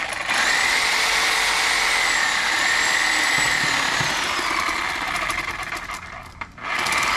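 Reciprocating saw running with a steady motor whine that drifts up and down in pitch as it cuts through a gar's bony tail section. About six seconds in it dies away almost to nothing and then starts up again.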